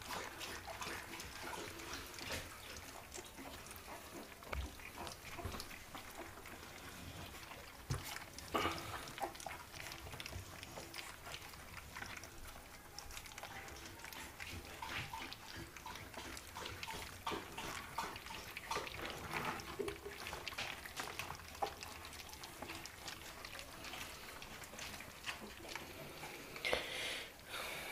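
Two-week-old American Bully puppies eating minced raw meat from a shared dish: irregular wet smacking and slurping clicks, with a louder cluster near the end.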